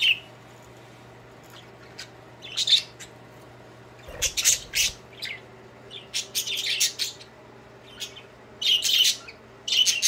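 Budgerigar giving contact calls to another budgie: several short bouts of high, scratchy chirps and squawks, starting a couple of seconds in and coming again and again.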